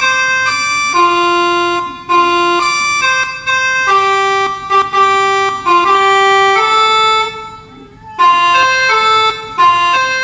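Bus 'telolet' horn, a Basuri multi-tone air horn, playing a tune: a string of loud held notes stepping up and down, each lasting about a quarter to half a second, with a break of about a second near the end.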